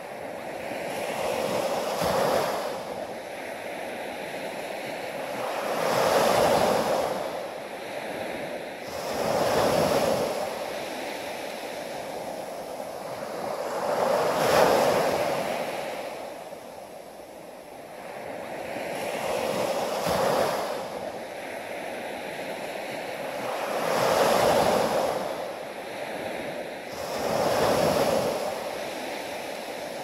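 Small ocean waves breaking and washing up over a sandy beach, the surf swelling and fading in a slow, steady rhythm, about seven surges a few seconds apart.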